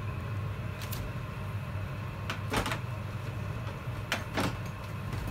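Kitchen handling noise at the stove: about five light clicks and knocks, two of them close together in the middle and two more near the end, over a steady low hum.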